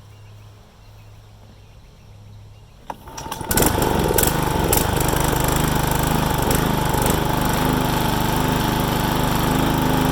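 John Deere 14SB walk-behind mower engine starting up about three seconds in, then running steadily.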